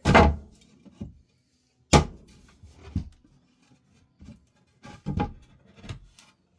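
Scattered knocks and clunks of hard objects being handled, about half a dozen spread over several seconds, the first the loudest.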